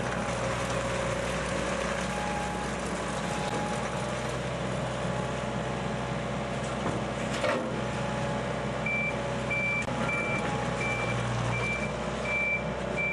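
Heavy equipment running steadily, with a single knock about halfway through. Then a reversing alarm starts beeping evenly, a little under twice a second.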